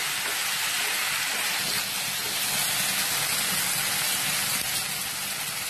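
Onions, tomatoes and whole spices sizzling steadily as they fry in ghee and oil in a non-stick kadai, stirred with a wooden spatula.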